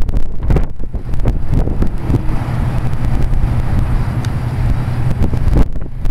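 Wind buffeting the camera's microphone: a loud low rumble that surges and flutters in gusts. It masks any sound of the city below.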